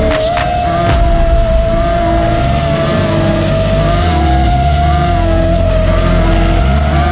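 FPV racing quadcopter's brushless motors and propellers whining in flight at a steady high pitch that wavers slightly with throttle, over electronic music with a pulsing bass line.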